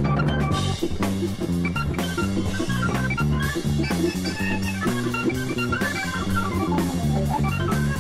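Recorded band music: electric guitar playing over bass guitar and a drum kit with a steady beat.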